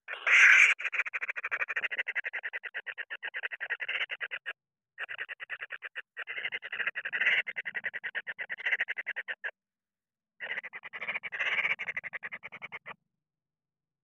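Kingfisher nestlings calling in fast pulsed churring runs, three bouts broken by short pauses, with a louder harsh note about half a second in.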